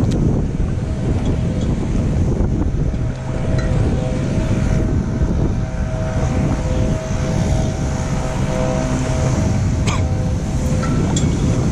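Wind buffeting the camera's microphone: a loud, steady low rumble, with a faint steady hum above it and a brief knock about ten seconds in.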